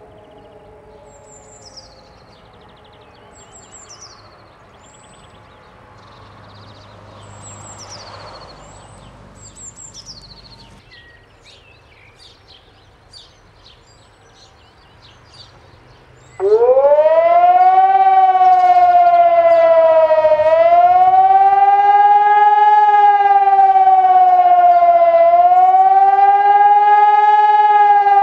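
Birds chirp and a faint siren tone dies away. About sixteen seconds in, a Hörmann ECN 600 electronic civil-defence siren (a 600-watt loudspeaker siren) switches on suddenly and loud. It sweeps quickly up in pitch, then wails in waves, rising and falling about every five seconds.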